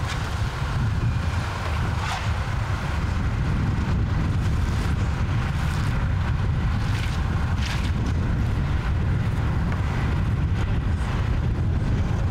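Street construction site sound: a steady low rumble of wind and machinery, with a few faint short scrapes.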